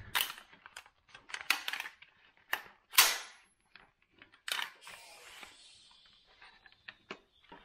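Sharp clacks from a Del-Ton AR-15 in 5.56 being worked during a safety check to confirm it is unloaded: its action and metal parts clack and click several times. The loudest, sharpest clack comes about three seconds in.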